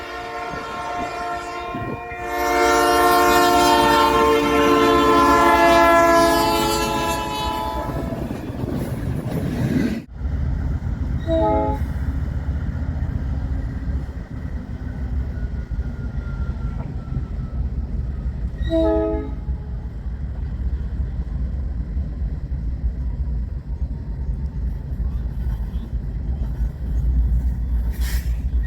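Nathan Airchime New Cast P3 three-chime locomotive horn sounding a long loud blast that swells about two seconds in and fades away after several seconds. Then comes a steady low rumble of a moving train, broken by two short horn toots, and another blast begins near the end.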